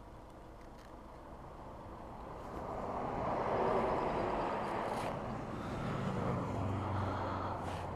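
Motorcycle on the road: engine and rushing road noise swell a few seconds in, then settle into a low, steady engine note in the second half.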